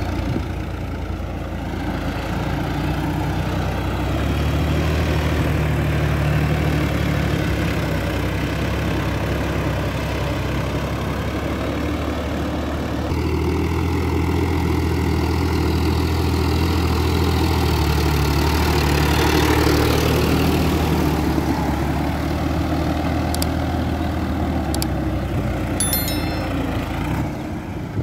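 Sonalika Tiger DI 55 4WD tractor's diesel engine running steadily under load as it pulls a rotary tiller through a flooded paddy field. The engine note shifts abruptly about halfway through, and a short chime sounds near the end.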